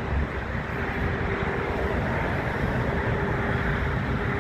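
Distant jet airliner engines at an airport: a steady rush with a faint held hum that fades out and comes back.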